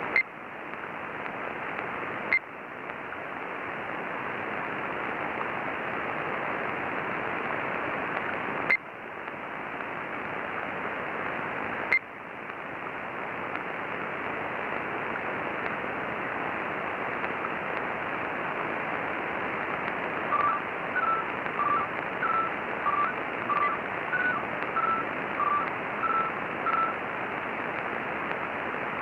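Shortwave radio receiver tuned to 13,560 kHz giving steady hiss, broken by four sharp clicks, each followed by the hiss dropping and slowly building back. From about 20 seconds in, a run of about a dozen short beeps alternating between two pitches, which the uploader takes for polytones.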